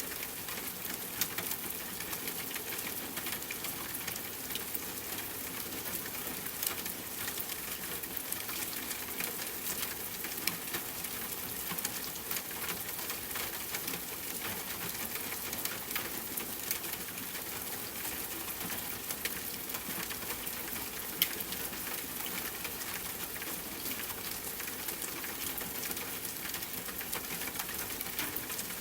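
Steady rain hissing, with scattered small crackles and a few sharper pops from a wood fire.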